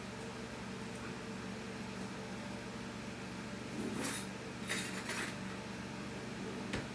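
Garlic powder shaken from a spice shaker in two short hissing bursts, about four and five seconds in, over a steady low hum, with a sharp click near the end.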